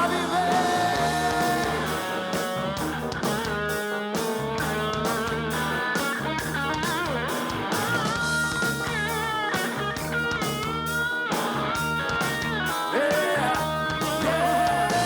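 Live rock band in an instrumental break: an electric guitar plays a lead line with bent, gliding notes over bass guitar and a steady drum beat.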